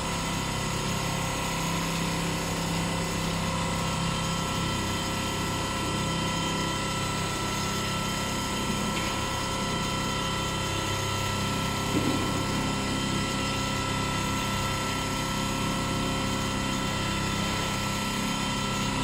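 Large CNC quilting machine running steadily while it stitches: a continuous mechanical hum with a few held tones, and a brief knock about twelve seconds in.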